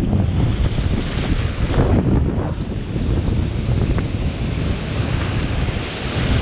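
Wind buffeting the microphone in a steady low rumble, over breaking surf and whitewater rushing around a kayak as it is paddled out through the shore break.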